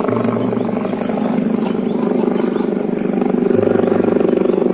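Helicopter running close by: loud, steady rotor chop and engine noise, getting a little louder after about three seconds.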